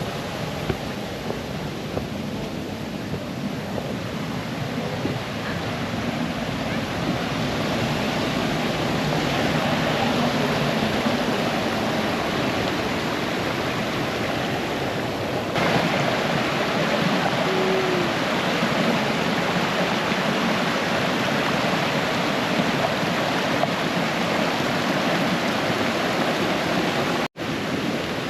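A small rocky brook running and cascading over stones, a steady rush of water, with a brief dropout about a second before the end.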